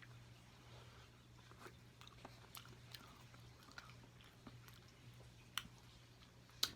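Quiet chewing of soft, sauce-coated food, with scattered small wet mouth clicks, a couple louder near the end, over a faint steady low hum.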